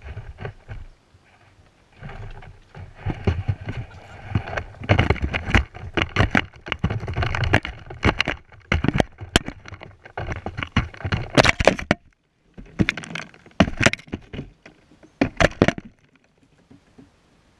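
Close, sharp taps and knocks with scratching and rustling in dry leaf litter as free-range hens peck and scratch right at the camera, in clusters that stop about 16 seconds in.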